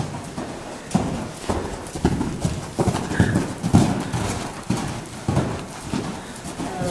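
Hoofbeats of a loose Thoroughbred cantering on soft arena sand: dull thuds repeating about every half second with each stride, starting about a second in.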